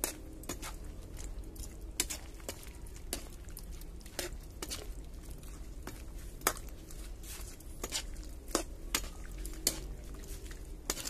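Metal spoon stirring chicken feet in thick adobo sauce in an aluminium wok, with irregular clinks and scrapes of the spoon against the pan.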